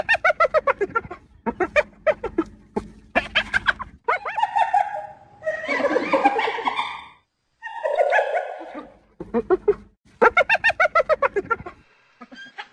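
Spotted hyenas giggling: bouts of rapid, high-pitched staccato notes, with harsher, noisier drawn-out calls in the middle.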